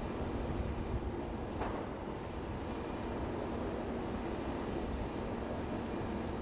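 Steady rumbling roar of a large fire burning through parked buses, with a low engine hum underneath and a faint crack about one and a half seconds in.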